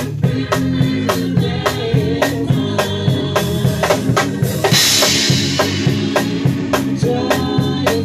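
Drum kit played live close to the microphone: a steady beat of kick and snare over sustained pitched notes from other instruments, with a cymbal crash a little over halfway through.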